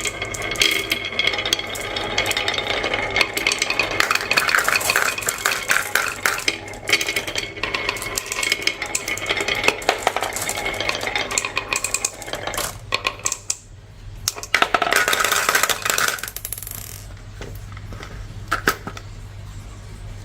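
Marbles rolling and clattering down a marble run: a dense rattle of rolling with sharp clicks as they knock together and drop, thinning to a few separate clicks in the last few seconds.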